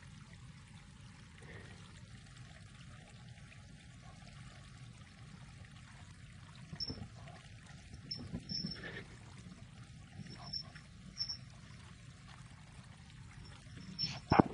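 Steady low background noise, with a few soft thumps and rustles from a kitten pouncing in a bed duvet and a few brief high chirps.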